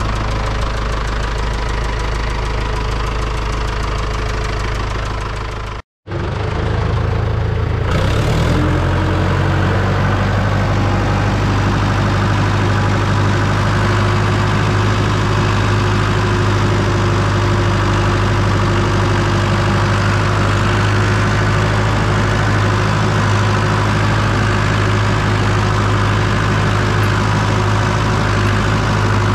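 IHC 624 tractor's four-cylinder diesel engine running at idle, then, after a brief break in the sound about six seconds in, revving up and running steadily at higher speed as the tractor drives.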